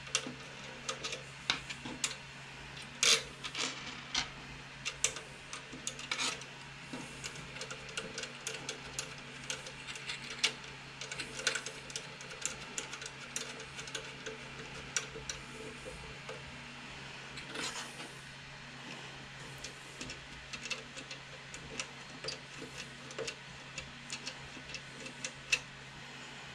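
Irregular small clicks and taps from hands handling wire leads and connectors, over a steady low hum.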